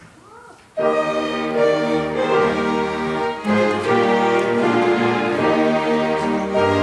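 An orchestra comes in abruptly less than a second in, strings to the fore, playing full sustained chords after a brief quiet moment.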